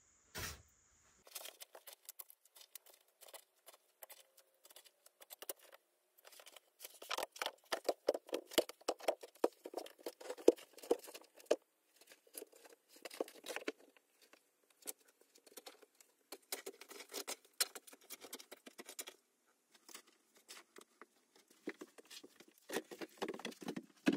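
Loose dirt and small stones scraping and rattling as they are dug out from under a rock ledge. The sound comes in rapid runs of short scratches and clicks, with a heavier scraping near the end as a large rock is worked free.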